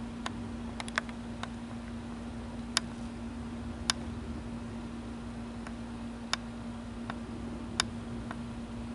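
Faint low rumble of an Airbus A340-300's four CFM56 turbofans passing high overhead, under a steady hum. About ten sharp clicks are scattered irregularly through it.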